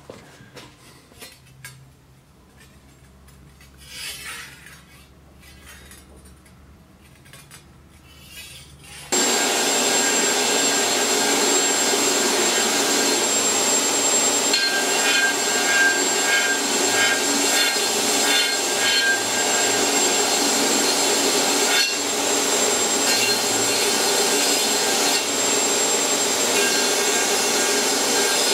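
Quiet for about nine seconds, then a belt grinder comes in abruptly and runs steadily as a steel sword blade is ground against the belt over its contact wheel, a constant hiss of belt on steel with a thin high whine.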